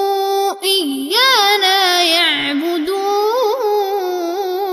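A boy's voice chanting Quran recitation in the Warsh reading. A long held note breaks off about half a second in, then the word "إيانا" is drawn out with melodic turns and settles into another long held note.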